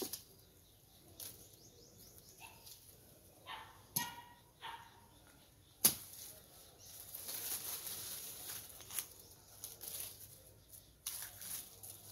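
Dry weeds and brush rustling as they are pulled and cleared by hand, with a few sharp cracks of stems about four and six seconds in and a longer stretch of rustling after that.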